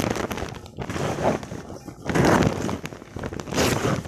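Gift-wrapping paper being torn open and crumpled by hand, in several rustling, crinkling rushes, the biggest about two seconds in and another near the end.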